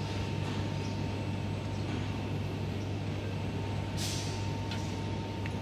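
Steady low electrical hum with a thin high whine from the laser cutting machine and workshop equipment, and a brief handling noise about four seconds in as parts are fitted on the laser head.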